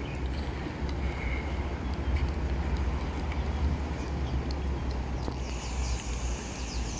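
Wind buffeting the microphone, a heavy fluttering rumble over outdoor waterside noise. From about five seconds in, a high, rapidly repeated chirping joins it.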